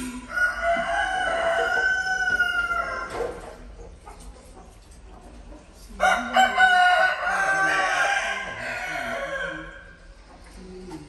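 Domestic fowl crowing twice, each crow drawn out over about three and a half seconds; the second begins about six seconds in.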